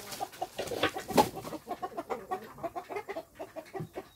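Free-range chickens clucking over and over, short repeated calls. A brief burst of noise about a second in is the loudest moment.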